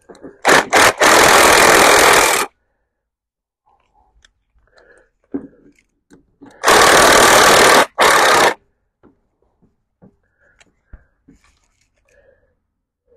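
Cordless impact wrench hammering in two bursts of about two seconds each, a few seconds apart, tightening a loose bolt on a mower deck, with faint clicks of the socket and tool handling between the bursts.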